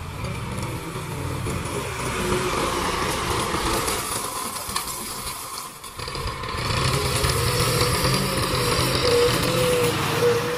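Tractor engine running steadily, dipping briefly about six seconds in and then running louder.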